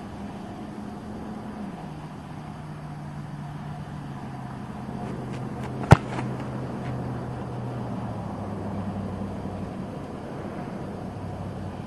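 A single sharp thud of a kicker's foot striking an American football off a tee, about six seconds in. Behind it a low engine-like hum runs throughout, its pitch dropping in steps.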